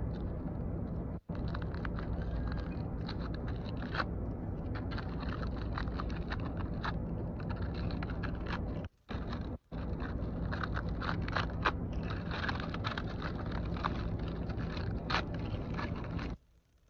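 Aluminium foil being crumpled and crinkled in the hands: a dense run of sharp crackles over a steady low rumble, cutting out briefly about a second in and twice around nine seconds in.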